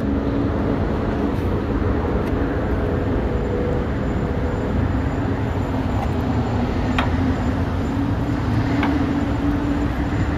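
Steady vehicle and road-traffic noise with a low, even drone. Twice in the second half, a faint sharp click as a small pick works the hood strut's end clip.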